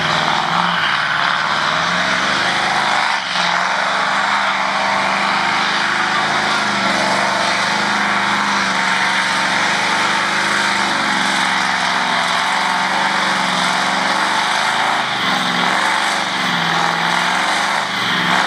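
Farm tractor's diesel engine running flat out under heavy load as it drags a weight-transfer pulling sled, its engine note wavering up and down.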